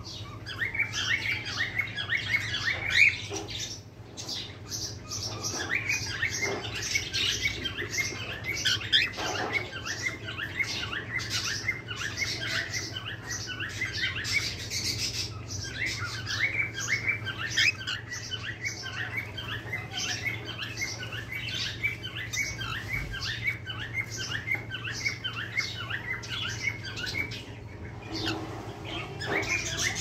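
Cockatiel chick begging in the nest box: a fast, unbroken run of short, high chirps, several a second, pausing briefly twice.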